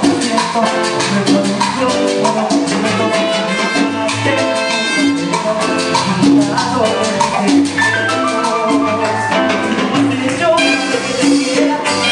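Live band playing cumbia, with trumpet over a steady dance beat.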